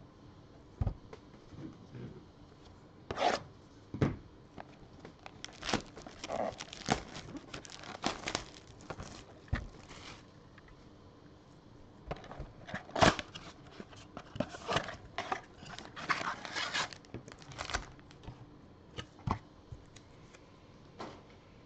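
Hands opening a cardboard blaster box of basketball trading cards and taking out its foil packs: an irregular run of tearing, crinkling and light knocks, loudest about halfway through.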